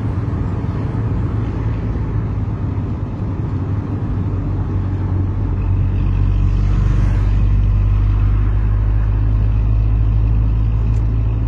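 Motor vehicle running, a steady low rumble that grows louder about six seconds in.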